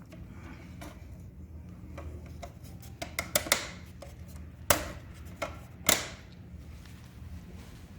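Small hard parts handled on a workbench: scattered sharp clicks and knocks, the loudest a few in the middle, over a steady low hum.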